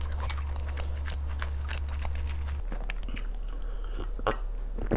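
Close-miked chewing of spicy sauced Korean fried chicken, with dense wet crunching bites for the first couple of seconds, then sparser. Near the end come a couple of separate louder sounds as cola is drunk from a glass mug, likely gulps.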